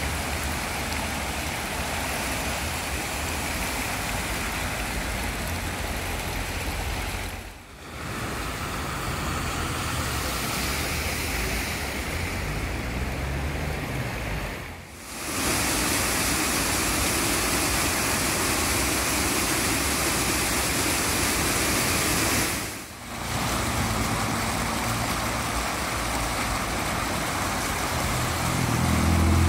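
Rushing floodwater after a heavy rainstorm, heard as steady splashing and gushing in several short takes split by brief cuts: a car splashing through a flooded street, water pouring into a kerbside storm drain, and water welling up out of an overflowing drain onto the pavement.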